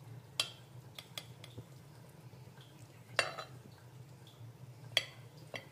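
Steel knife blade clinking against a cut-glass plate as hard-boiled eggs are cut into quarters: about half a dozen sharp, separate clinks spread over the few seconds, the loudest near the start, a little after three seconds and about five seconds in.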